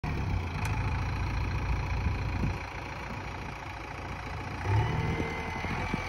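JCB 3DX backhoe loader's diesel engine running steadily while the backhoe arm works. It eases off a little in the middle and grows louder again near the end.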